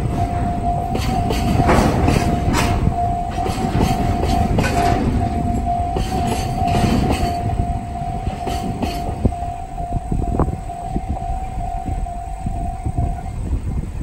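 Japanese level-crossing alarm of the JR Central type, sounding a steady, repeating electronic tone that stops near the end. Under it a freight train of tank wagons rumbles past with wheels clacking over the rail joints, the clacks dying away about nine seconds in.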